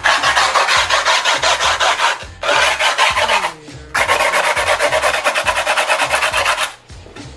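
Old screwdriver shaft scraped hard along the edge of a skateboard deck over sandpaper-like grip tape: a rough, gritty rasping in three long strokes. It scores the deck's outline into the grip so the overhang can be cut off.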